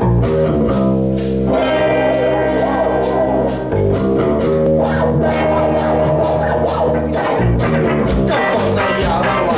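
Live post-punk band playing: electric guitar and bass over a drum kit, the hi-hat or cymbal struck steadily about three times a second.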